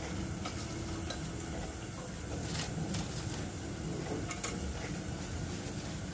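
Sweet potato slices deep-frying in oil over a gas burner: a steady sizzle with a low rumble, and a few sharp crackling pops scattered through it.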